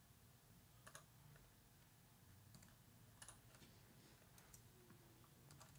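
Near silence: room tone with a few faint, scattered clicks of a computer mouse.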